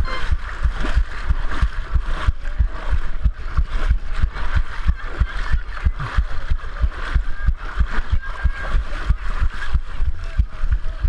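A pounding heartbeat picked up through the chest-mounted camera: quick, even low thumps, about three a second, the racing pulse of a runner mid-exertion. Underneath are the splash and slosh of wading through muddy water.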